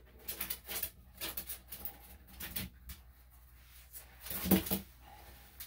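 A small dog's paws and claws scuffling and scratching on a grooming table as it struggles against having its paw held, with one louder thump about three quarters of the way through.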